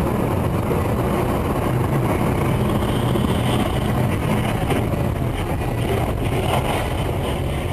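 A motor vehicle running steadily: an engine hum mixed with road noise, with no sudden impact.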